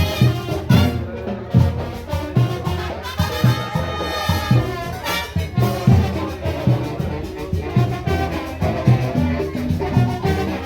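Parade band playing salsa-style Latin music, brass over a steady drum beat.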